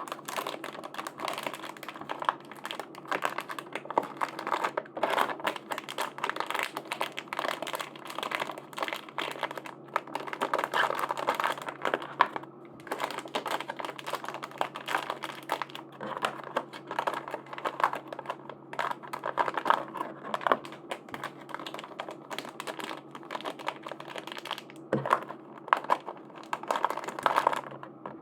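Plastic packaging crinkling and rustling under quick hand handling, with many small clicks and taps as merchandise is unwrapped.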